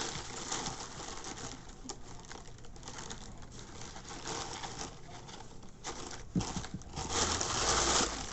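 Plastic packaging crinkling and rustling as it is handled, with scattered light clicks; it grows louder near the end.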